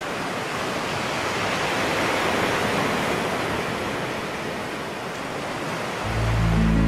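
Steady rushing surf of ocean waves breaking on a beach. Acoustic guitar music starts near the end.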